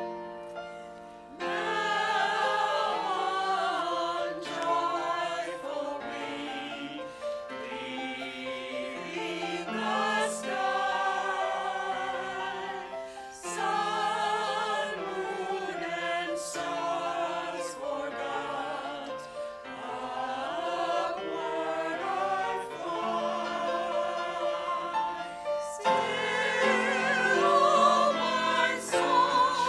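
A group singing a hymn in harmony with keyboard accompaniment. The voices come in about a second and a half in, after a brief keyboard lead-in.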